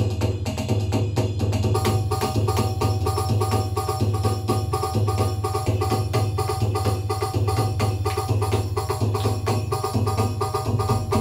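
Roland HandSonic HPD-20 electronic hand-percussion pad played with fingers and palms: a fast run of percussion strokes over a steady low drone, with a repeating pitched pattern joining about two seconds in.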